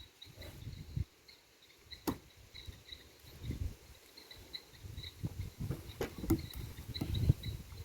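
Cricket chirping, a short high chirp repeating about three times a second, over irregular low thumps and a few sharp clicks.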